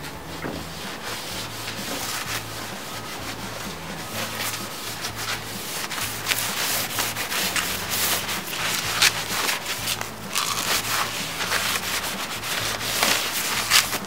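Cloth rag rubbing over the bare pine boards of a wooden beehive box in a run of quick wiping strokes, growing louder a few seconds in, as the excess sealer is wiped off.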